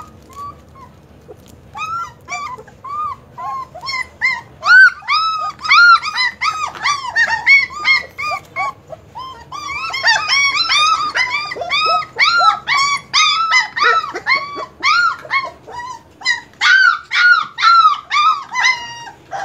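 A litter of German Shepherd puppies crying together: many short, high-pitched cries, each rising and falling, several a second and often overlapping, starting about a second and a half in.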